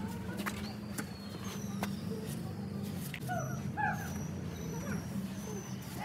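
Two short, arched whining calls from an animal, close together about halfway through, over a steady low hum with a few faint clicks and thin high whistles.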